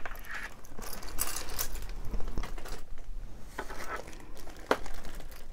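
Earrings being handled in the fingers: soft rustling with scattered small clicks and clinks of the pieces, a few sharper ones partway through.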